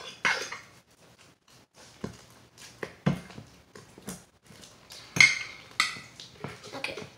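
Freshly activated homemade slime being kneaded and mixed by hand: irregular sticky squelches and clicks, the loudest about five seconds in.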